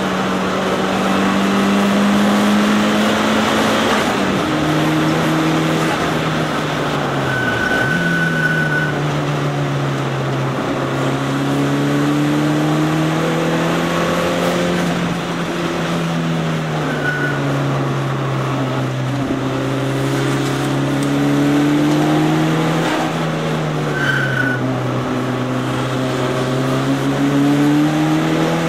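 Mitsubishi Lancer Evolution III's turbocharged four-cylinder engine heard from inside the cabin, driven hard on track. The engine note climbs through each gear and drops sharply at every shift, over a steady rush of road and wind noise. A few short high-pitched squeals come in between.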